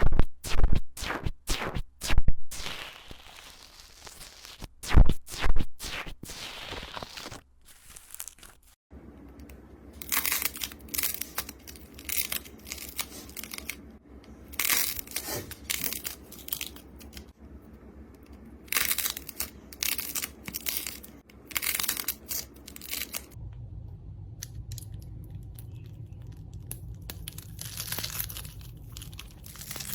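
Slime being squished and pressed, with sharp crackling and popping that come thick and fast at first, then in separate bursts every second or two across several short clips.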